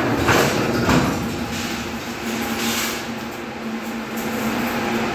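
Work-site clatter from installing an elevator machine: a few sharp knocks in the first second and a short hissing scrape near three seconds, over steady background noise.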